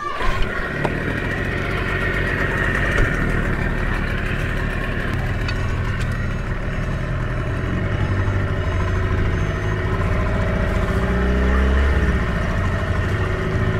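15-horsepower outboard motor on an inflatable dinghy, starting right at the beginning and then running steadily under way. The engine note grows heavier and rises a little about eight seconds in as the throttle is opened.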